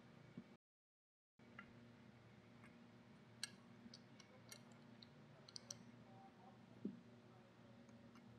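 Near silence broken by faint, scattered clicks and ticks of small screws being handled and started by screwdriver into a metal vent window frame, with one soft knock near the end.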